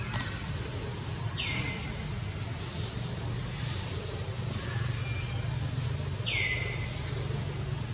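High, clear calls that slide down in pitch, three times (at the start, about a second and a half in, and near the end), with a few short high notes between, over a steady low hum.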